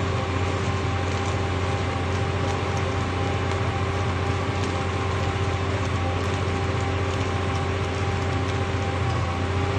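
Mobile flash-butt rail welding machine running with a steady, unchanging drone and hum.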